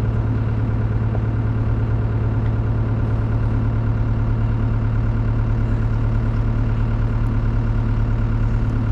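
Large two-stroke chainsaw on a Granberg Alaskan chainsaw mill running at a steady pitch while ripping a slab from a black walnut log.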